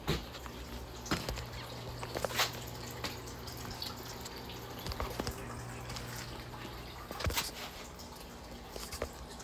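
A few light, irregularly spaced clicks and taps, fingertips tapping a phone's touchscreen keyboard, over a faint steady low hum.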